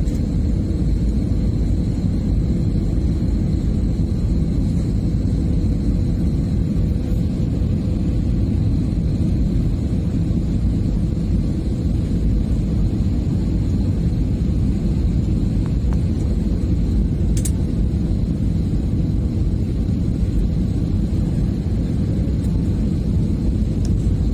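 Steady low rumble inside a jet airliner's cabin on final approach for landing, engine and airflow noise, with a faint steady high whine. A single short click about 17 seconds in.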